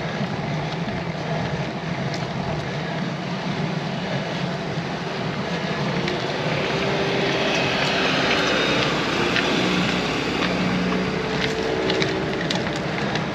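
A car passing slowly from behind, its engine growing louder from about six seconds in and fading again near the end, over steady wind noise on the microphone.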